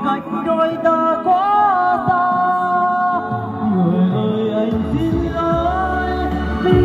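Slow ballad music: a held, sliding melody line, joined by a steady low bass about five seconds in.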